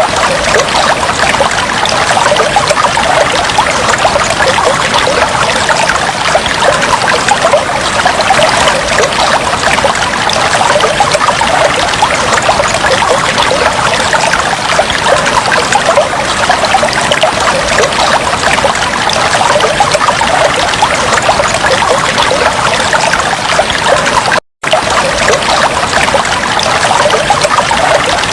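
Aquarium water trickling and bubbling steadily, a dense fine crackle of splashes and bubbles, cutting out for a split second near the end.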